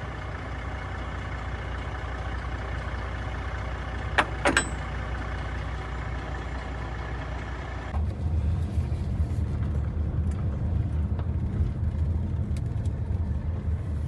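Semi truck's diesel engine running steadily, with a short sharp squeak about four seconds in. About eight seconds in the sound changes abruptly to a heavier, rougher low rumble.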